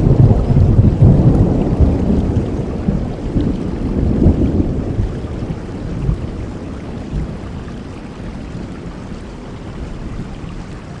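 Rolling thunder over steady rain, loudest at the start and dying away over about six seconds, leaving the rain's even hiss.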